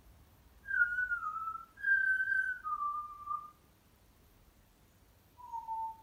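African grey parrot whistling: three clear notes in a row, each a little lower than the one before, then a short, lower note near the end.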